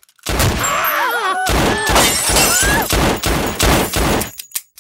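Handgun fired in rapid automatic bursts for about four seconds, with screams over the shots in the first half.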